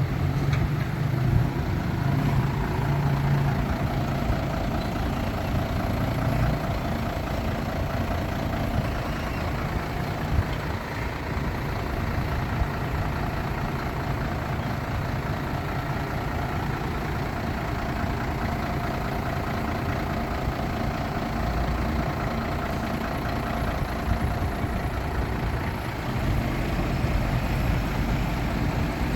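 Heavy diesel engine of earthmoving machinery running steadily, a little louder near the start and again near the end.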